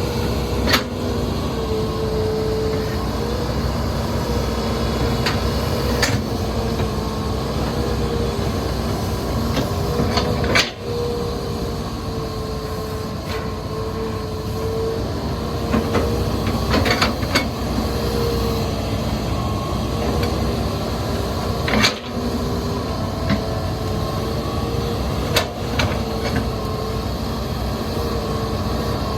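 Hitachi Zaxis 210 hydraulic excavator's diesel engine running under load with a steady, wavering whine. Sharp clanks and knocks come every few seconds as the bucket works soil and rock.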